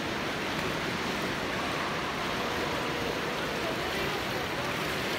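Steady splashing and water noise from swimmers doing lengths in an indoor swimming pool.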